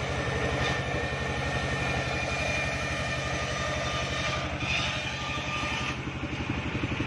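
Engine of a wood sawmill machine idling with a steady rapid chugging, with a faint whine over it.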